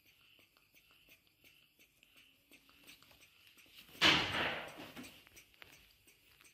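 Baby monkey sucking milk from a feeding bottle: soft, wet clicking suckling sounds. About four seconds in a sudden loud noise cuts in and fades away over about a second.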